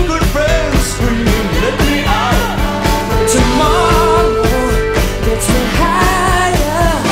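Background rock-pop music with a steady beat and a melody line that sounds sung, with no words made out.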